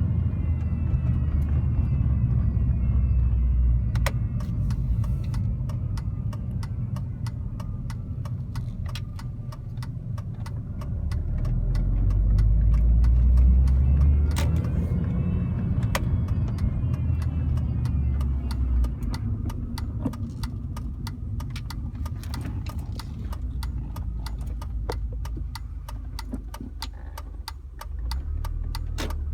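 2005 Mini Cooper S driving, with engine and road rumble that swells about halfway through as it accelerates. Thin whining tones rise and fall in pitch with the engine, and many sharp, irregular clicks run through it. The owner calls the sound under acceleration a strange 'electrical' noise and has not traced its source.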